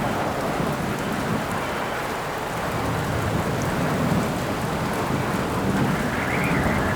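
Steady rain with a low rumble of thunder swelling and fading under it.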